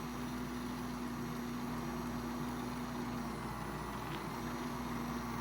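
Mini beauty blender washing machine running with a makeup brush in it: a steady small-motor hum that drops out briefly about three seconds in and comes back.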